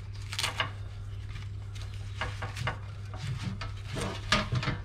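Hands handling a LiPo battery pack and its wire leads, giving scattered rustles and light clicks and knocks over a steady low hum.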